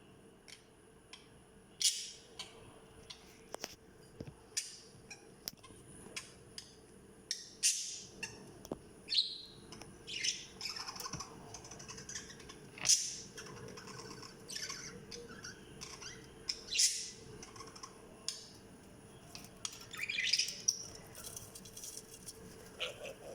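Pet budgerigars chirping and squawking in short, sharp calls at irregular intervals, with a few louder squawks standing out.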